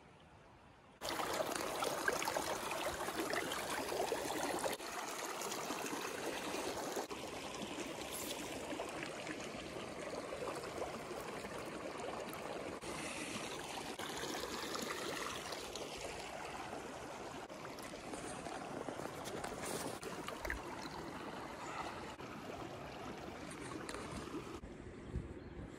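Mountain stream flowing: a steady rush of running water that starts abruptly about a second in, with small jumps in level a few times.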